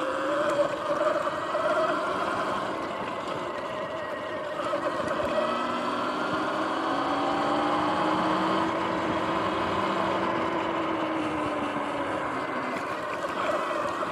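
Sur-Ron electric dirt bike under way: its electric motor and drivetrain give a whine that rises and falls in pitch with speed, over steady wind and tyre noise.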